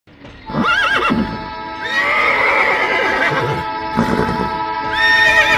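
Horse whinnying: quavering neighs about half a second in and again near the end, with a longer one around two seconds in, over background music with steady held tones.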